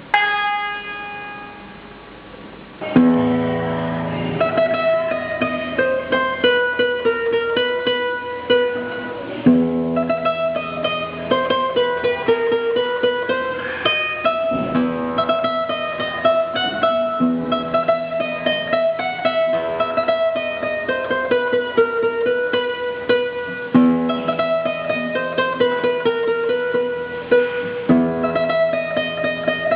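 Acoustic guitar: a single plucked string rings and fades, then about three seconds in a tune is played on it with a recurring low bass note under the melody.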